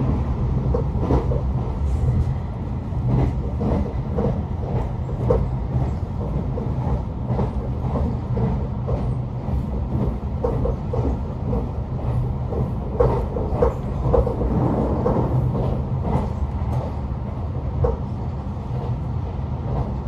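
Meitetsu Kowa Line train running, heard from inside the carriage: a steady low rumble of wheels on rail with frequent irregular clicks and knocks.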